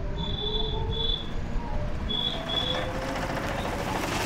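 Steady low rumble of an e-rickshaw riding along the road, heard from inside the cab. Over it come two pairs of short, high chirps, one pair near the start and one about halfway through.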